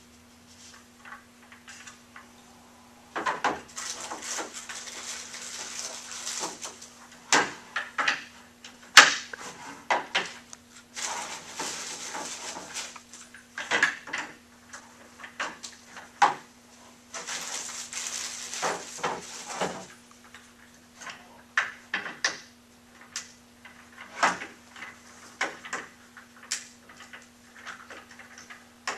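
Office-chair casters being pushed and snapped into the leg sockets of a nylon five-star chair base: a string of sharp plastic knocks and clicks, with several stretches of rustling between them.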